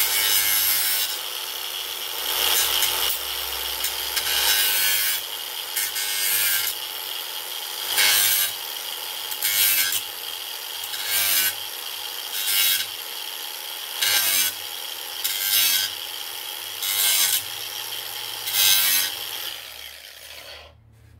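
DeWalt angle grinder running with a steady whine, its abrasive disc grinding steel repair staples flush with a plastic wheelbarrow tub in repeated passes, louder each time the disc bites, about every one and a half seconds. The grinder is switched off and winds down near the end.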